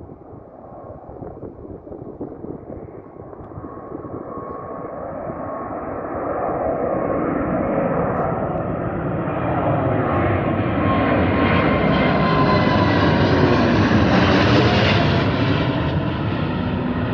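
A Boeing 787 Dreamliner's twin jet engines at takeoff power as the airliner climbs out. The sound grows steadily louder as it approaches and passes overhead, and its pitch slides down near the end.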